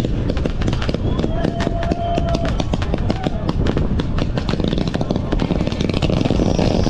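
Fireworks display: a rapid, continuous crackle of many sharp pops and cracks from aerial shells and comets, over a low rumble of bursts.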